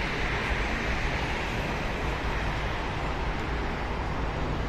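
Steady, even roar of a distant jet airliner's engines on the runway, mixed with highway traffic noise.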